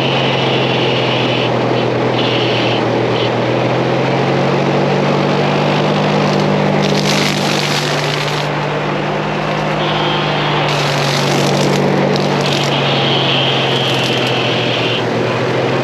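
Kubota KX40 mini excavator's diesel engine running steadily at working speed while its tree-trimming mower attachment cuts, with a higher whine that comes and goes and two spells of hiss and rattle.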